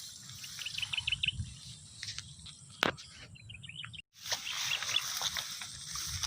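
Small birds chirping in two quick runs of short high notes, and a single sharp click a little under three seconds in.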